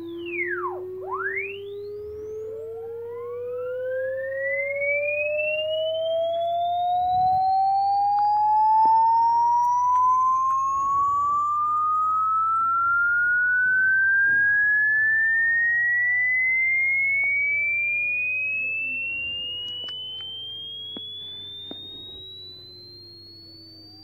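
Electronic test-tone frequency sweep: a pure tone rising slowly and steadily in pitch from low to high, crossed by fainter tones gliding up and down, with two quick swooping chirps about a second in. A faint low hum runs underneath, and the sweep fades near the end.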